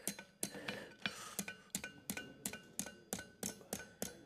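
Light, even hammer blows on a hot steel horseshoe at the anvil, about three a second, each with a short metallic ring, as a jar calk is bent over from the shoe's heel.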